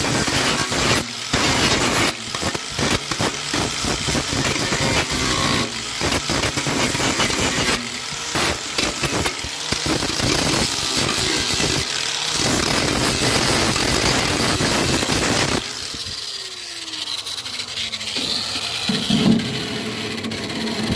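Harbor Freight angle grinder grinding the steel of an old pickup truck bed, in bursts with short breaks as it touches and lifts off. About sixteen seconds in the grinding stops and the motor winds down, its pitch falling.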